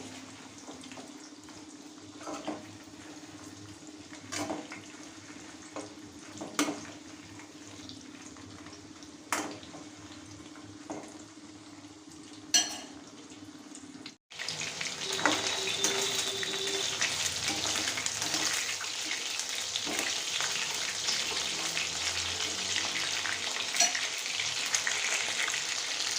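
Chicken pieces shallow-frying in hot oil in a kadai, a steady sizzle, with a few sharp clicks in the first half. About halfway through there is a short break, after which the sizzle is louder and denser.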